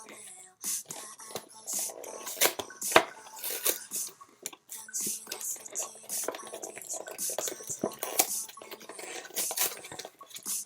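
Utensil clicking and scraping against a takeout food container in many quick, irregular strokes, as food is picked at and eaten.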